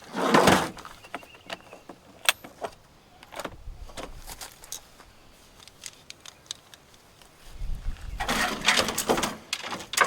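Wind gusting over the microphone with a low rumble, along with loud rustling and scattered clicks and rattles.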